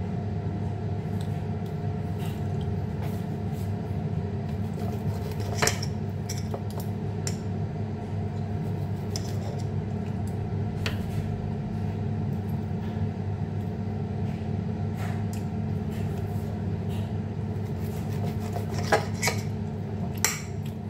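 Knife and fork clinking and scraping on a ceramic plate while cutting steak: a few sharp clinks, several close together near the end, over a steady low hum from a running appliance.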